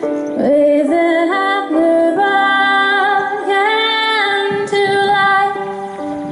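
A woman singing a slow worship melody, her voice stepping and sliding between long held notes over steady sustained backing chords.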